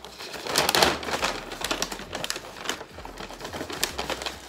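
Brown paper takeout bag rustling and crinkling as it is opened and handled, with the loudest crackling about half a second to a second in.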